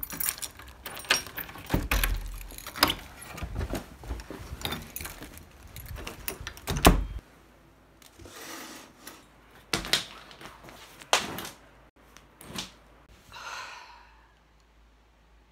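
Handling clatter: a dense run of knocks and clicks with keys or keychain charms jangling, thinning out about halfway to a few single knocks and brief rustles.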